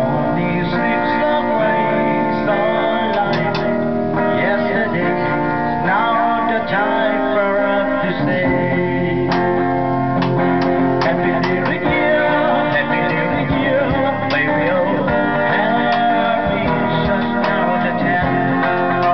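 Acoustic guitar played while men sing a song.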